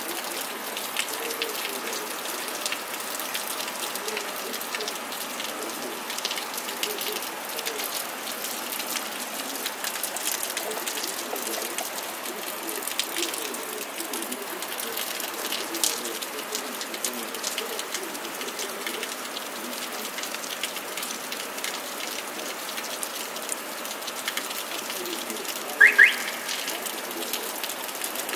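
Steady rain hissing down on a wet courtyard, with scattered drop ticks close to the microphone. Near the end comes a brief, loud double chirp.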